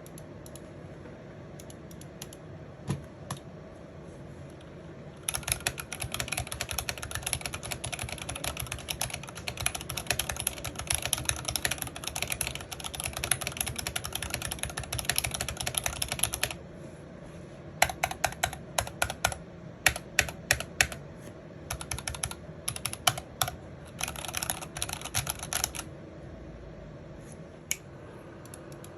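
Typing on an RK61 Pro mechanical keyboard with Gateron Red linear switches, in an aluminium case with thick dye-sub PBT keycaps. A few single keystrokes, then a fast continuous run of typing, then separate presses and short bursts toward the end.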